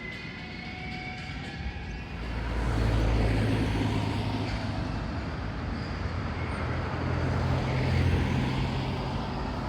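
A heavy vehicle passes close by: a low rumble with a steady deep hum swells up about two seconds in and keeps on. A faint high squeal dies away at the very start.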